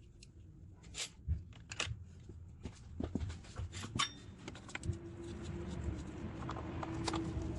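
Hand tools and metal parts clicking and clinking during engine reassembly work, with a steady hum coming in about five seconds in.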